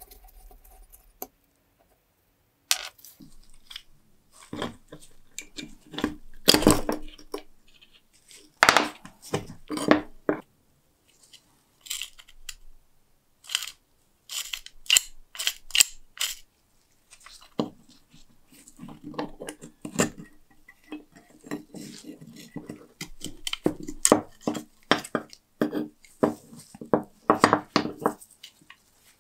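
Iron parts of a rusty antique door lock clinking and scraping as the lock is taken apart by hand, with pieces set down on a wooden workbench. The clinks and scrapes come irregularly, with short pauses, and are busiest in the second half.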